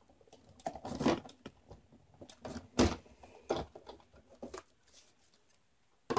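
Big Shot die-cutting and embossing machine being hand-cranked, then its plastic plate sandwich pulled out and handled: a series of irregular clunks and clattery knocks, the loudest just under three seconds in.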